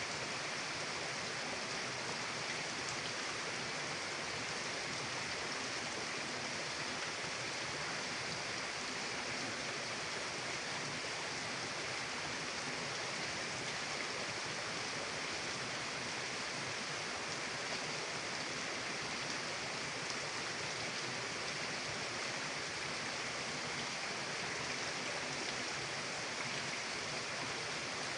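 Mountain river rushing over rocks: a steady, unbroken sound of flowing water.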